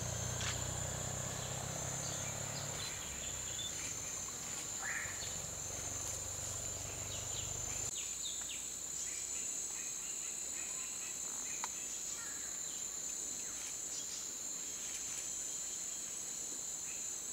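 Steady high-pitched drone of forest insects. A low hum runs underneath and stops about eight seconds in.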